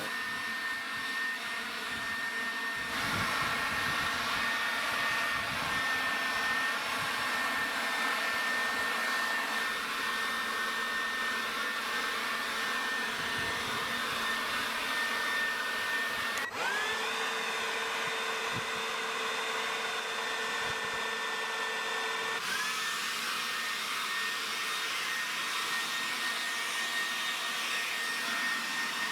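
SnapFresh 20-volt cordless battery leaf blower running steadily: rushing air with a constant high electric-motor whine. Twice, about 16 and 22 seconds in, the sound shifts abruptly and the whine briefly climbs back up to pitch.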